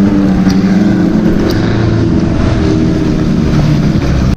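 Off-road vehicle's engine running loudly and steadily, a constant drone under continuous noise.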